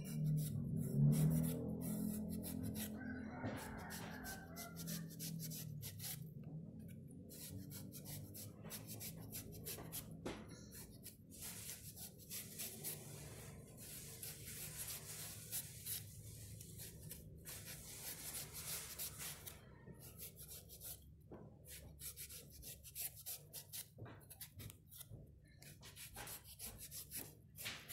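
A kitchen knife shaving the skin off eggplants in quick repeated scraping strokes, with the peel rustling as it comes away.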